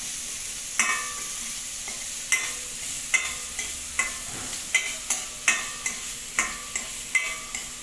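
Chopped onions and green chillies sizzling as they are sautéed in oil in a stainless steel kadai, with a spoon scraping and clinking against the pan about twice a second as they are stirred.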